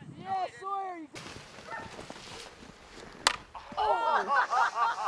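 Several people whooping and hollering: short wordless calls that rise and fall in pitch, two early on and a dense overlapping burst of them in the last second or so. A single sharp click comes a little past three seconds in.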